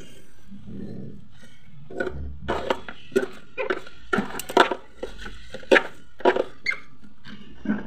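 Damp cloth wiping and rubbing the plastic interior of a mini fridge, with a quick run of short scrapes and knocks from about two seconds in.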